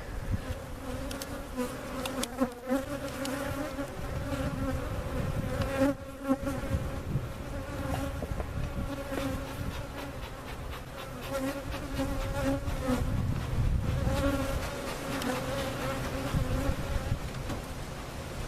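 Honey bees of a freshly hived cutout colony buzzing in a steady, wavering hum around the open hive, with a few brief knocks.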